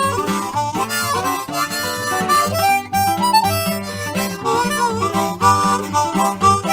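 Background music: a harmonica playing a melody over guitar and a steady bass, an instrumental break in an old-time country gospel song.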